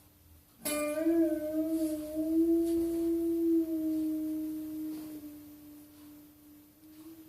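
A long howl, likely a dog's, starting suddenly just under a second in. It wavers slightly in pitch and fades out over about five seconds, over a faint steady hum.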